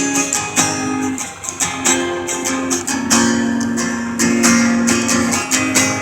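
Acoustic guitar strummed in an instrumental passage between sung lines of a song, with repeated strokes over held chords.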